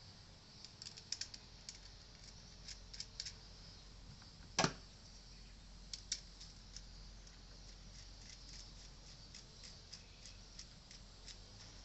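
Scattered light clicks and taps of small hard objects being handled, with one sharper click a little under five seconds in, over a faint steady hum.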